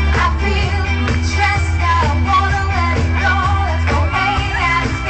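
Live pop concert music: a singer's voice over a band with a heavy, steady bass line, which drops out briefly a little after four seconds in.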